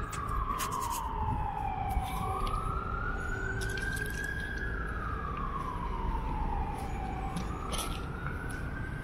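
Emergency vehicle siren wailing, its single tone sliding slowly up and down about every four seconds, over a low steady rumble.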